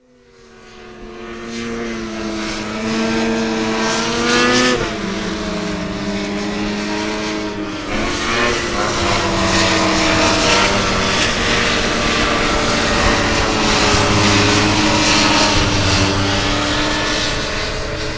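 Snowmobile engine running and revving, fading in over the first couple of seconds. Its pitch climbs to about four and a half seconds in, drops sharply, dips again near eight seconds, then holds with small rises and falls.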